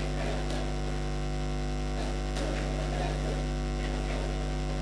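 Steady low electrical mains hum, with faint voices of a congregation praying aloud underneath.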